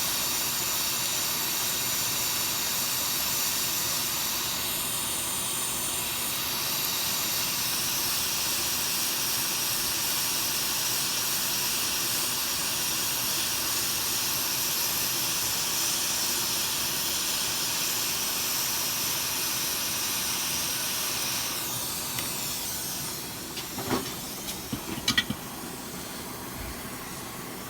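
A steady airy hiss of blowing air that cuts off about 22 seconds in, followed by a few light clicks and taps.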